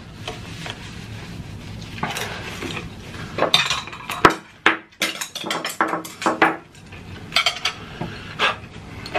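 Eating sounds of two people having pan-fried dumplings with chopsticks: chewing, with a run of sharp clicks and smacks in the middle and a few more near the end. The dumplings are overcooked and crisp.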